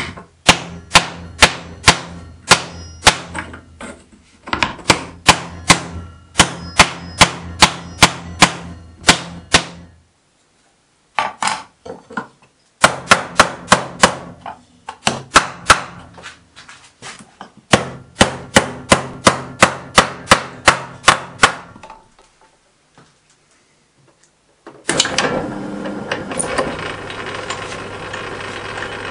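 Hammer blows on a copper disc held over a round former, about two a second in runs with short pauses, as the copper is flanged into a boiler end. About 25 s in, a metal lathe starts running steadily, spinning the copper part.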